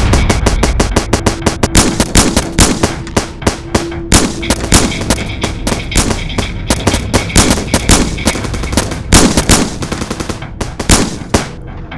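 Rapid bursts of gunfire, several shots a second in clustered volleys with brief gaps.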